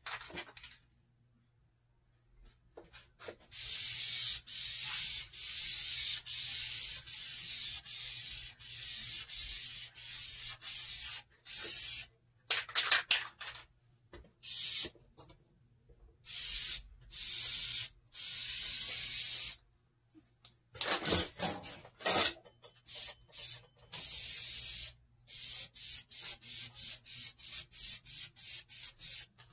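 Aerosol can of Dupli-Color vinyl and fabric paint spraying in repeated short bursts of hiss, the bursts coming quick and brief near the end. Twice along the way there is a louder clatter.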